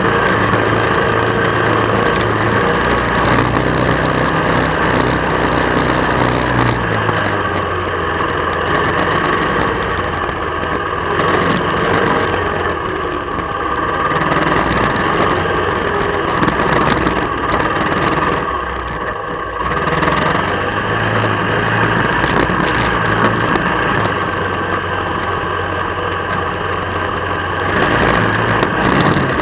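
1999 Honda Fourtrax 300 ATV's single-cylinder four-stroke engine running at low trail speed. The low engine note eases off about seven seconds in, dips briefly about two-thirds of the way through, and picks up again near the end.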